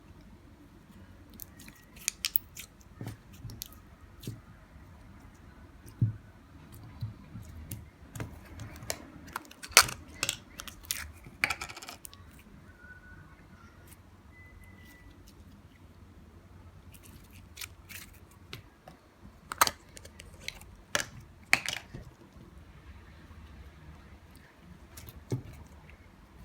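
Slime being squeezed and poked by hand, giving scattered sharp clicks and pops that come in small clusters, busiest in the middle of the stretch and again later on.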